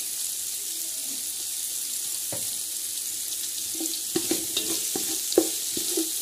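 Sliced onions sizzling steadily as they fry in hot Dalda (vanaspati ghee) in a metal pot. About four seconds in, a spatula starts stirring them, knocking and scraping against the pot several times.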